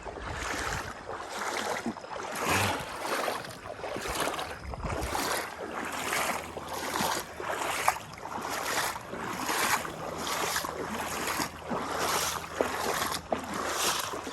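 Water sloshing in a steady rhythm of about three swishes every two seconds, at walking pace, as something moves through shallow floodwater.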